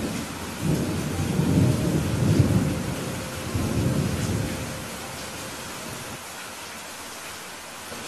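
Steady rain hiss, with a low rumble of thunder rolling in about half a second in and fading away after about four seconds.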